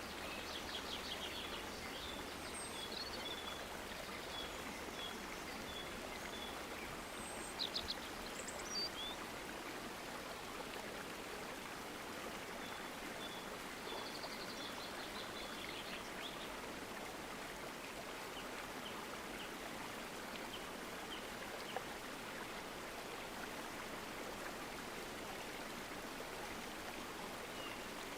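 Steady rush of a flowing stream, with small birds calling over it: runs of short, high repeated notes, a louder cluster of calls about eight seconds in, and further bouts later.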